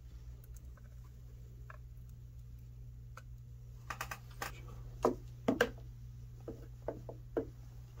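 Sharp clicks and light knocks of a tuner's plastic housing being handled and set down on a silicone work mat, in a cluster about halfway through, over a steady low hum.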